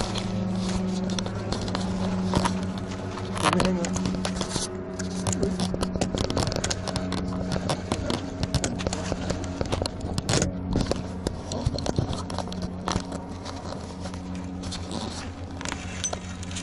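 Fishing reel being wound in against a hooked carp, with dense scraping and clicking as the rod stays bent under the fish's pull. A steady hum runs underneath.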